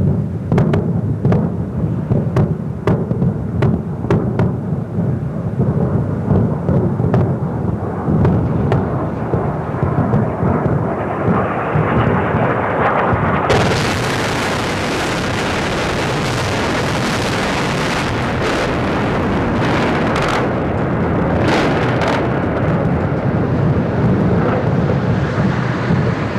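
Low rumble of bombing explosions, picked up live by a news camera's microphone, with a quick string of sharp cracks in the first half. About halfway through, the sound switches abruptly to a different feed: a steadier, hissier rumble with a few more cracks.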